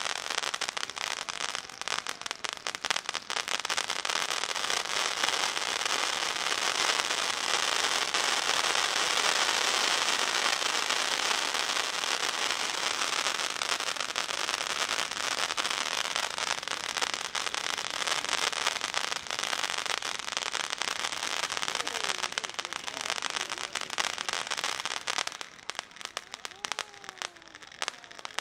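A row of ground spark fountains burning, a dense steady hiss full of fine crackling. Near the end it drops off sharply as most of them burn out, leaving a thinner, quieter hiss from the two still going.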